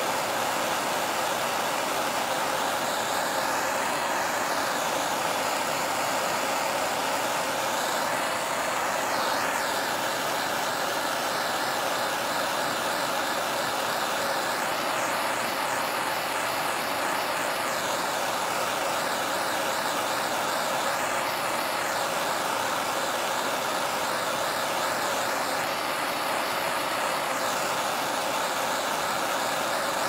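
Propane torch burning with a steady, even hiss while it heats a steel knife blade for heat treating.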